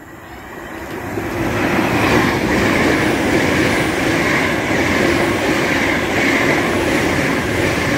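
LNER Class 800 passenger train passing through the station at speed without stopping. The wheels and rails swell over the first two seconds as it approaches, then make a steady loud rush with a faint clickety-clack as the carriages run past.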